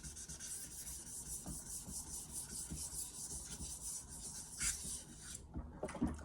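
A square block cut from an old 1000-grit whetstone scrubbed back and forth across the face of a 2000-grit sharpening stone, a gritty rasping rub that lifts the metal load-up off the stone. The rubbing stops about five seconds in, followed by a few short knocks.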